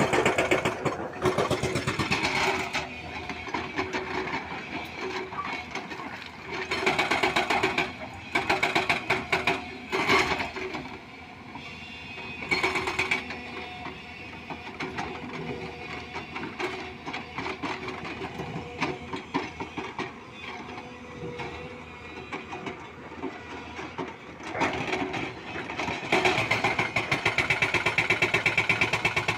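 Hyundai 230 excavator's diesel engine running with a fast, even pulsing, growing louder in several stretches and then settling back.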